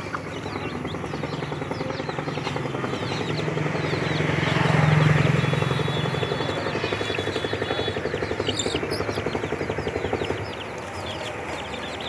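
A motor vehicle passes by. Its engine grows louder to a peak about five seconds in and fades away by about ten seconds. Chicks peep faintly now and then.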